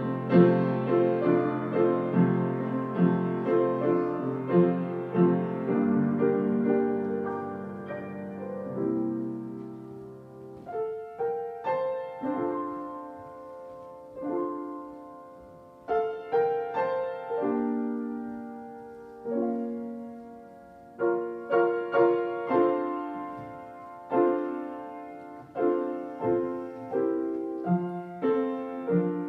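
Solo piano playing a slow piece: full, ringing chords at first, then thinner chords struck one after another, each fading before the next.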